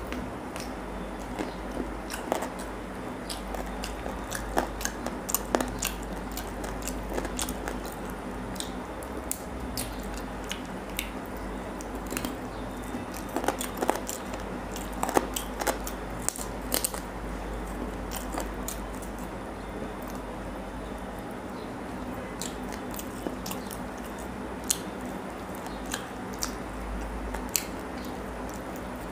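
Close-miked eating of curried chicken leg: biting and tearing meat from the bone and chewing, heard as many small sharp clicks and crunches, over a steady low hum.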